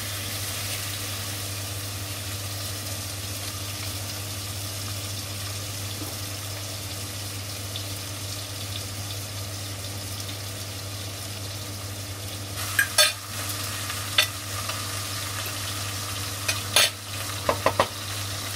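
Pork chops sizzling steadily in hot fat in a frying pan. Past the middle come a few sharp knocks of a spatula against the pan as the chops are turned, several in quick succession near the end.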